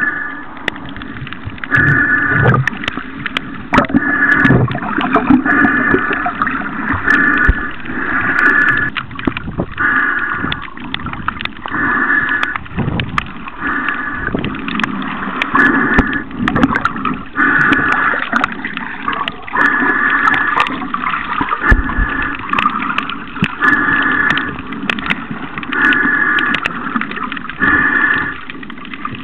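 Water gurgling and splashing around a snorkeler, with a sound that repeats every one and a half to two seconds and many small scattered clicks.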